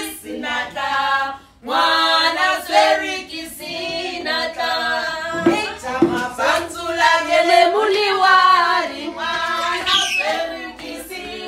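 A group of women singing together without instruments, their voices holding and sliding between notes.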